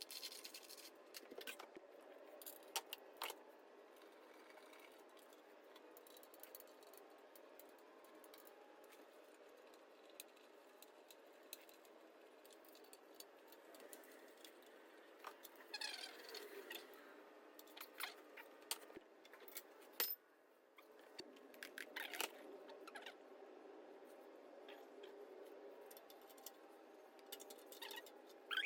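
Faint, scattered clinks and rattles of hand tools and loose bolts against metal while an engine is being taken apart, over a low hiss.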